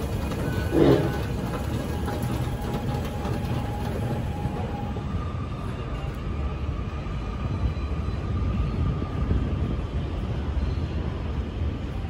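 Subway station concourse ambience: a steady low rumble with faint steady tones over it, and a brief louder bump about a second in.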